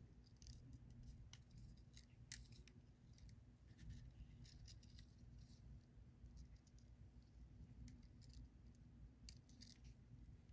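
Faint, scattered scratches and small clicks of fishing line being wrapped and pulled between fingers as a knot is tied, over a quiet low hum.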